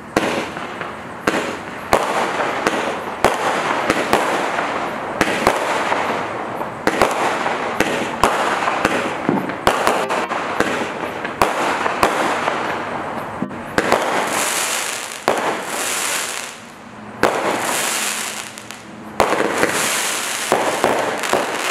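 A 14-shot firework cake firing: sharp launch reports a second or two apart, with continuous crackling and fizzing from the bursting effects between them, and a brighter hissing stretch about two-thirds of the way through.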